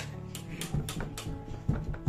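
Music with a steady beat of sharp percussive strikes over a low sustained accompaniment.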